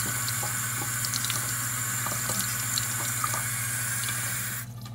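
Water running from a sink faucet, splashing over a plant's stem and roots held under the stream to rinse the soil off. The tap is shut off suddenly near the end.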